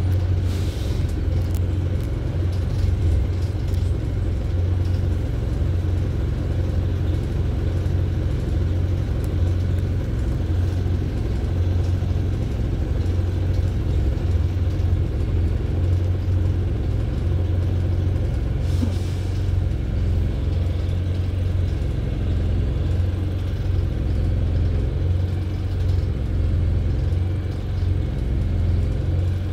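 Wright StreetLite single-deck bus running, heard from inside the passenger cabin: a steady low rumble of engine and road noise.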